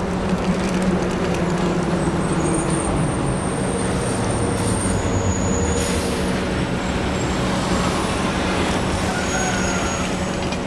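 NYC Subway train running on the tracks: a steady rumble with a constant low hum, and faint high-pitched wheel squeal coming and going. A single sharp click about six seconds in.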